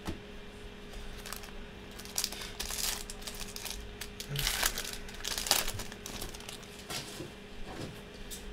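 Plastic wrapper of a pack of trading cards crinkling in irregular bursts as hands pull it open and handle the cards.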